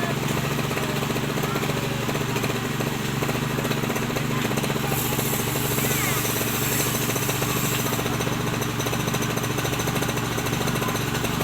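Small engine of a walk-behind cultivator running steadily at a constant speed.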